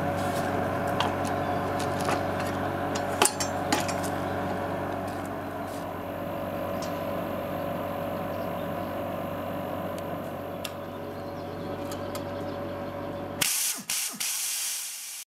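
A steady machine hum with a few sharp metal clanks as the compressed-air chainsaw is locked onto its pipe-clamping fixture. Near the end a loud hiss of compressed air starts as the pneumatic chainsaw runs up, then cuts off abruptly.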